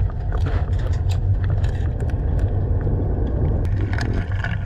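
Underwater noise inside a large aquarium tank: a steady low rumble with many scattered crackling clicks.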